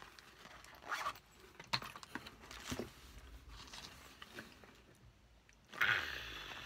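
Zipper on a black makeup-brush case being pulled shut in a few short scratchy strokes. Near the end comes a louder, short breathy exclamation of excitement.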